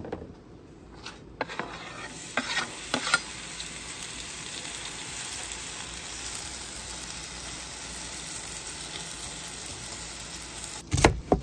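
Thin-sliced potatoes sizzling in hot oil on a flat-top steel griddle, a steady frying hiss. In the first few seconds a metal spatula ticks and scrapes on the griddle as the slices are spread out, and a couple of knocks come right at the end.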